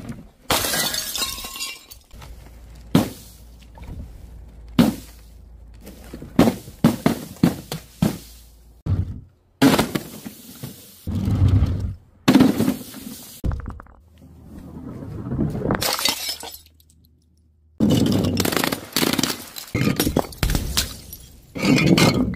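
A string of bottles dropped from a height, hitting tiles and wooden boards one after another: about a dozen sharp crashes, each a smash or burst followed by a brief spray and clatter, with short pauses between drops.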